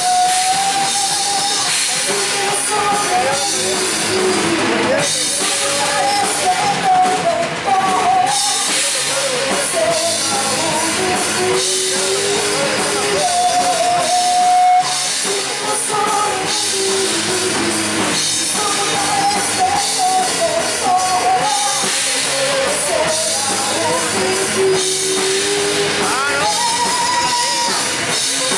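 Live rock band playing: a woman sings a melody with long held notes into a microphone over electric guitars and a drum kit.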